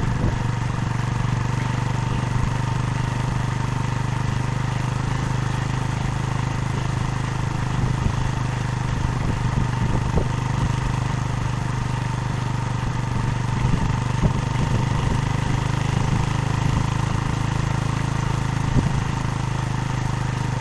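Motor vehicle engine running steadily at a low, even speed, a constant hum with a few faint knocks.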